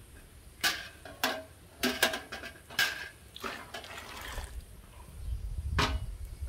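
A glass jar knocking and clinking against a pot several times, with a short pour of hot pine cone water into the pot between knocks. One more knock comes near the end.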